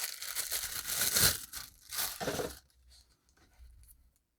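Plastic packaging being torn open and crinkled while the watch is unwrapped: a rush of crackling and tearing that dies away after about two and a half seconds.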